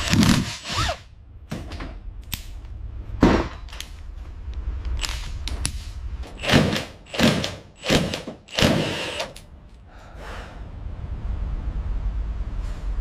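Workshop noise: a string of about ten knocks and short bursts of power-tool noise over a steady low hum.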